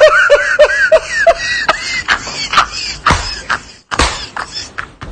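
A person's high-pitched voice in quick short bursts, like giggling, over a steady hiss, with several sharp clicks later on.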